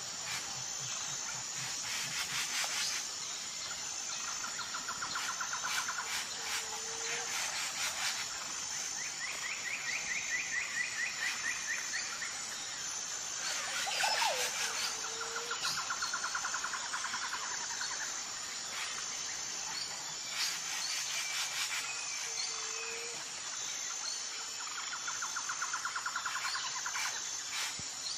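Nature ambience: a steady high insect drone with birds giving rapid trills every few seconds and short lower calls.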